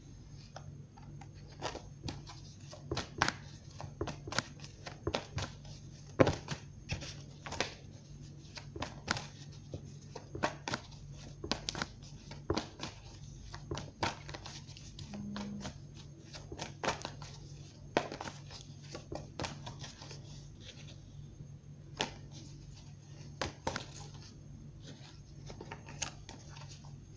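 Tarot cards being shuffled by hand: a run of irregular soft flicks and slaps of card against card, over a low steady hum.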